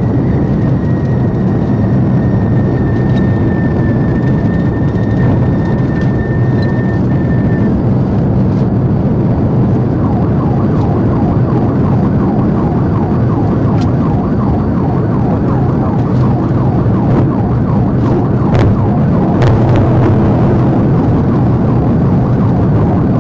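Steady loud road, tyre and wind noise of a police patrol car driving at about 110 mph, heard from inside the car. From about ten seconds in, a siren wails faintly under the noise.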